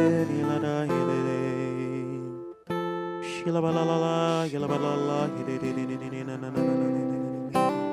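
Slow, soft worship music of acoustic guitar chords, strummed and left to ring, with a short break about two and a half seconds in before the next chord.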